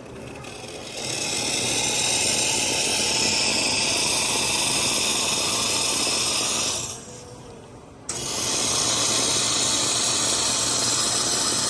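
Espresso machine's hot-water tap running into a jug, a steady hiss of hot water and steam. It stops about seven seconds in and starts again a second later.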